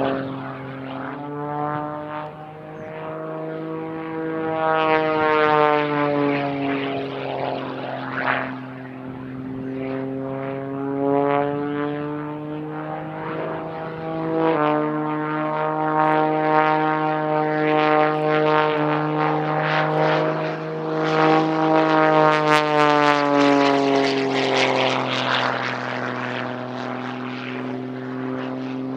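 Propeller-driven aircraft engine running in flight, its pitch slowly rising and falling several times as the plane manoeuvres and passes, over a steady low drone.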